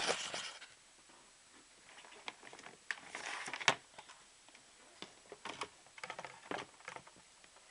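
Computer hardware being handled: scattered small clicks and knocks with short bursts of rustling, the loudest stretch of rustling about three seconds in ending in a sharp click.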